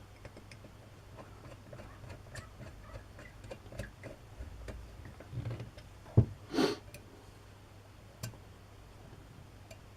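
Small metal clicks and light handling of the parts of a Stanley No. 733 breast drill being reassembled. A sharp click comes about six seconds in, followed by a brief scrape, and another click comes near eight seconds.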